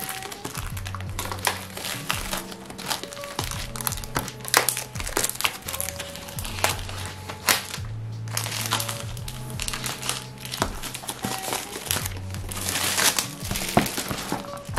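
Thin plastic shrink-wrap crinkling in quick irregular crackles as it is peeled off a cardboard tablet box and crumpled, over background music.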